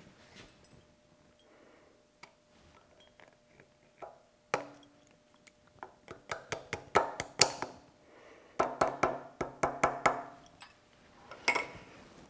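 A steel snap ring and snap-ring pliers clinking and clicking against the gearbox's bearing bore as the ring is worked into its groove. There are a few single clicks, then two quick runs of sharp metallic clinks, some ringing briefly, about halfway through and again a little later. The ring going into its groove shows the bearing has been pressed in just far enough.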